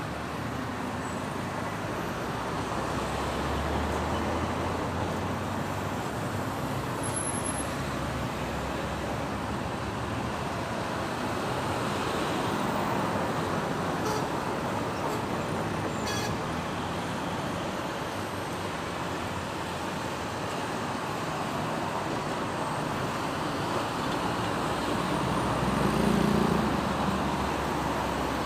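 Steady city road traffic: engines and tyres on a busy street, with a louder vehicle passing near the end.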